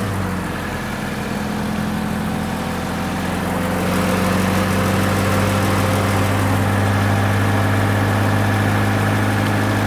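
Car engine idling steadily after being jump-started, its hum growing slightly louder a few seconds in.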